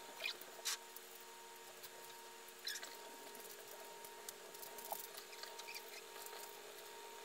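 Quiet room with a faint steady hum and a few short scratchy rustles and light taps from a cat shifting under a stroking hand and then padding off across carpet.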